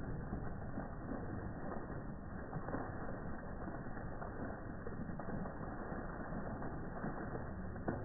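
A fountain's water jet splashing steadily into its pool, an even, muffled rush.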